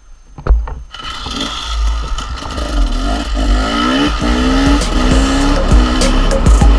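Enduro dirt bike engine accelerating hard, its pitch climbing in a series of rising ramps as it is revved up through the gears. A single knock sounds about half a second in, before the engine noise starts.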